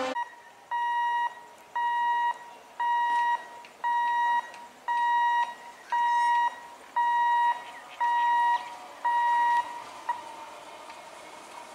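Electronic level-crossing warning alarm beeping: nine high-pitched half-second beeps, about one a second, which stop near the end.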